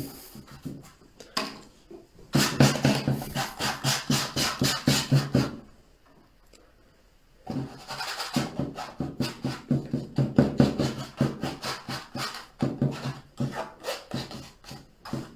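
A brush or palette knife being scrubbed against a stretched canvas as oil paint is applied, in quick short strokes about four or five a second. There are two long runs of strokes with a pause of about two seconds between them.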